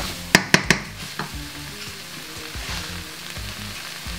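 Chilli con carne of mince and kidney beans sizzling in a stainless steel saucepan while it is stirred with a wooden spoon. About half a second in, three sharp knocks of the spoon against the pan, with a lighter one soon after.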